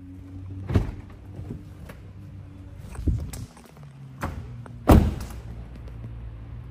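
Four thunks and clicks from the doors of a Lamborghini Urus being handled, the loudest about five seconds in, over a steady low hum.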